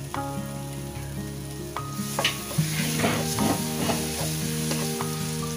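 Ginger-garlic paste sizzling as it fries in hot oil and ghee in a nonstick frying pan. A spoon stirs it around and clicks against the pan a few times.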